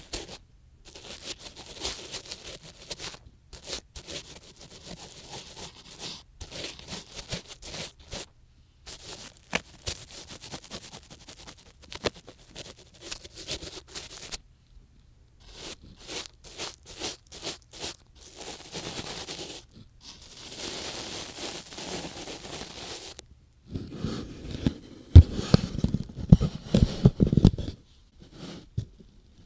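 An ear pick scratching and scraping inside the ear of an ASMR microphone in many short, irregular strokes. Near the end, louder deep bumps and rubbing against the microphone last a few seconds.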